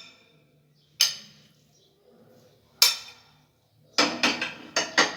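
Kitchen utensil clinking against a dish: single ringing clinks about a second in and just before three seconds, then a quick run of about five taps near the end.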